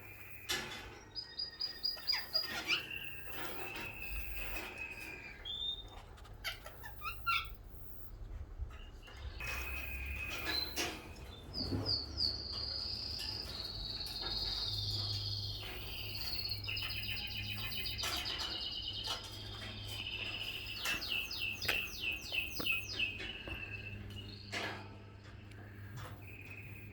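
Canary singing: long phrases of whistled notes and rapid trills, with short chirps from other birds in between.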